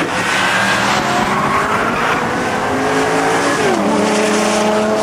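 Track cars' engines running hard at speed on the circuit. A bit over halfway through, the engine note drops sharply as a driver lifts or changes gear, then climbs slowly again.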